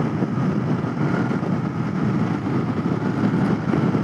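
Royal Enfield Continental GT 650's parallel-twin engine running steadily at cruising speed, mixed with wind rushing over the camera microphone.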